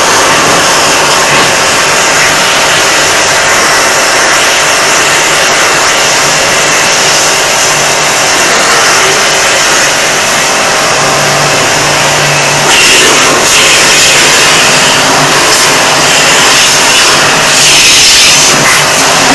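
A high-pressure jet washer runs with a steady motor hum under the loud hiss of its water jet spraying onto plastic air-conditioner parts. The spray grows louder and harsher twice, about two-thirds of the way through and again near the end, as it hits the parts differently.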